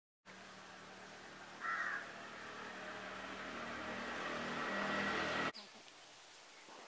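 Motor scooter engine running as it approaches, growing steadily louder, with a short sharp sound about a second and a half in. It cuts off suddenly about five and a half seconds in, leaving a faint outdoor background.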